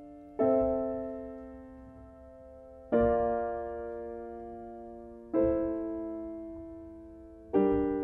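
Schimmel grand piano playing four slow chords, struck about every two and a half seconds, each left to ring and fade before the next.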